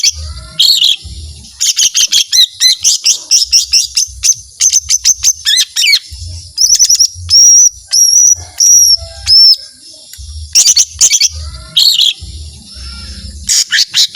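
Cucak ijo mini, a small green leafbird, singing at full volume: long runs of rapid, loud chattering notes mixed with high clear whistles, broken by short pauses.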